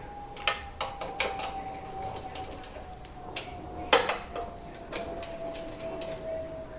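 Hand ratchet pulling down the small oil pan bolts on a Ford 289 V8, tightened a little at a time without an impact gun: a run of sharp metallic clicks, with one louder clack about four seconds in.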